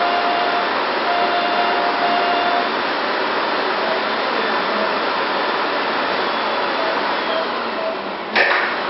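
Steady rushing noise like air from a blower or suction unit, with a faint tone coming and going, and a sharp click near the end.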